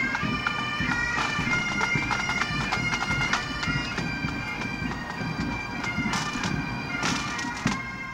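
Highland bagpipes playing a tune over their steady drones.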